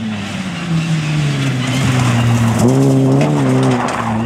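Rally car engine under way: its note slides down, then picks up again with a short rise about two-thirds of the way in and holds steady, over a continuous rushing noise.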